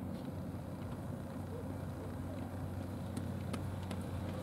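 Steady low hum of a running engine, with a few faint clicks about three seconds in.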